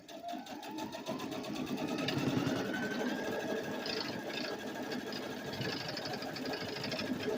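Brother CP100X computerized sewing and quilting machine stitching at full speed: the motor whine rises as it speeds up over the first two seconds, then holds at a fast, even needle rhythm. It vibrates a little because of the table it sits on.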